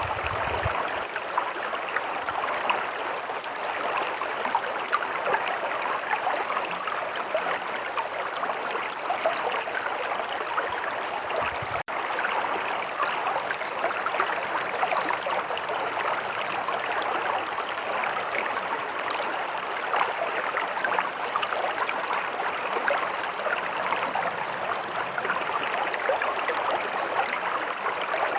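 A stream running steadily, a continuous babble of water with fine splashing and gurgling, briefly cut out by a momentary dropout about twelve seconds in.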